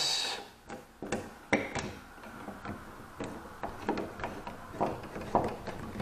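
Irregular small clicks and scrapes as a light switch is worked back into a metal electrical box, a screwdriver turning at its mounting screw.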